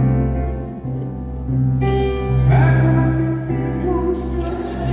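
Instrumental introduction of a song: a steady low bass line under held chords, with a few gliding melody notes.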